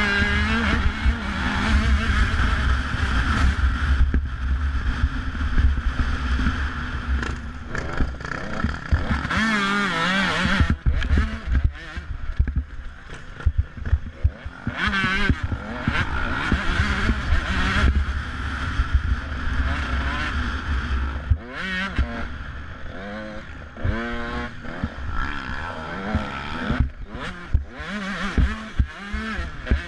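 Dirt bike engine heard from the bike's own mounted camera, revving and easing off again and again, its pitch climbing and dropping as the throttle opens and closes, over a steady low rumble.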